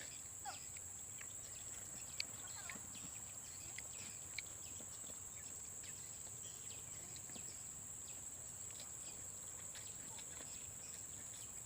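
Tropical forest ambience: a steady high-pitched insect drone, with scattered faint chirps and a few short sharp clicks.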